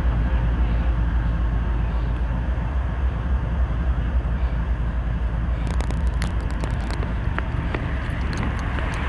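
Union Pacific freight rock train rolling by, a loud steady low diesel rumble that eases slightly, with a run of sharp clicks about six seconds in.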